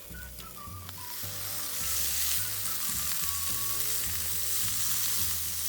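Food sizzling as it fries over a campfire, the hiss swelling about a second in and staying loud.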